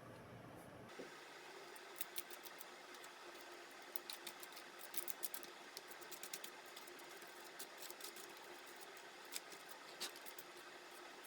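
Irregular small clicks and taps of laptop parts and small tools being handled, over a faint steady hum.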